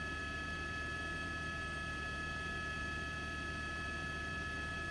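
Steady helicopter cabin noise: a low rumble with several constant high whining tones on top, unchanging throughout.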